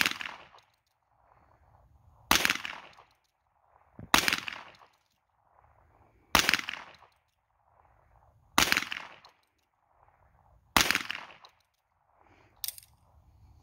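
Old three-screw Ruger Single Six .22 rimfire revolver fired six times, one shot about every two seconds, each sharp crack trailing off briefly. A weaker, shorter crack follows near the end.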